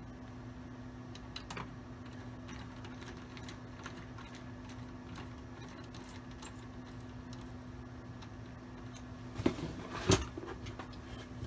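Screws being driven in by hand to fasten a CPU card into a Sun Fire V440 server: scattered faint clicks and ticks of metal, with a couple of louder knocks near the end.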